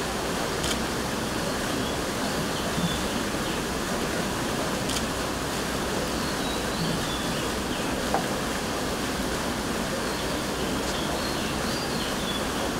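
Steady rushing hiss of air from portable evaporative air coolers' fans, with a few faint clicks.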